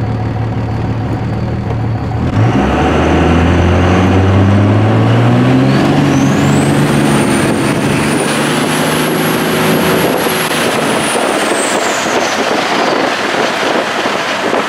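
Twin-turbo Cummins diesel pickup accelerating hard from a stop, heard inside the cab. About two seconds in the engine note climbs steeply while a high turbo whistle rises and holds, then falls away in the second half. Road and wind noise remain.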